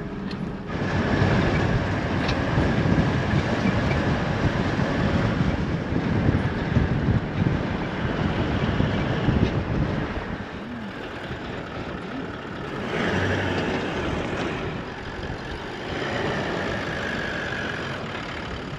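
Toyota LandCruiser 79 Series towing a caravan along a dusty dirt track: engine running and tyres on sand and gravel, with wind noise. Louder in the first half, then easing off as the rig slows.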